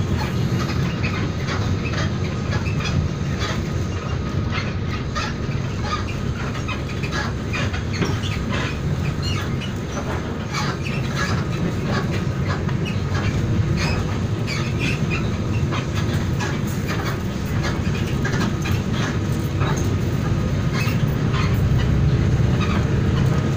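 Steady rumble of a moving vehicle heard from inside the cabin, with frequent small rattles and clicks throughout.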